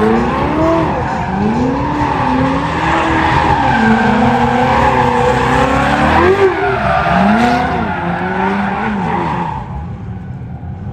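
Ferrari 488 drifting: the engine's revs rise and fall again and again over continuous tyre squeal and skidding, then the revs drop and the sound fades near the end.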